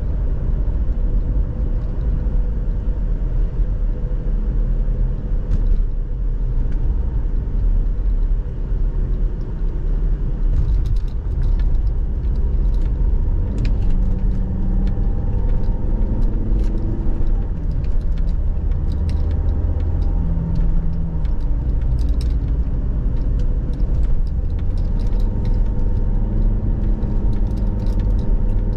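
Car driving on a road: steady engine and tyre rumble, with its engine tone shifting a little as it goes. Scattered small clicks and rattles come in the second half.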